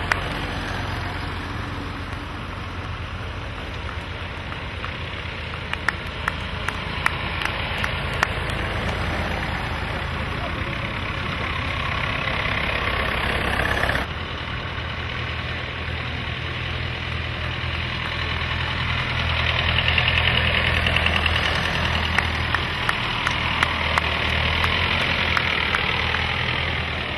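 Vintage tractor engines running at low revs as tractors drive past one after another, a steady low engine note with scattered sharp ticks. The sound changes abruptly about halfway through and is louder in the second half.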